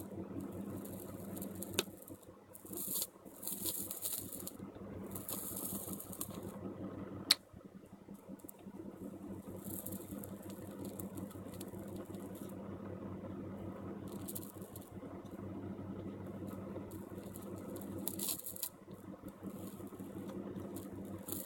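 Small fan humming steadily under intermittent scratchy rattling of metal tools worked against a circuit board while desoldering a USB connector's pins, with a few sharp clicks, the loudest about seven seconds in.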